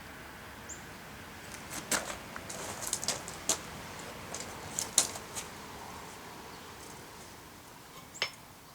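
Light metallic clinks and taps of hand tools and a small steel pan being handled while a center punch is set in place, clustered in the first half with one more near the end.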